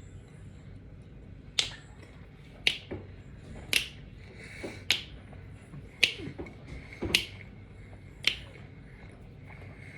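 Mouth smacking while chewing food: seven sharp, wet smacks at about one a second.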